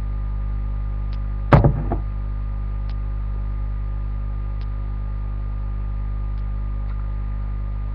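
Steady electrical mains hum, broken about one and a half seconds in by a sharp knock and a couple of lighter knocks as a drinking glass is set down on a hard surface.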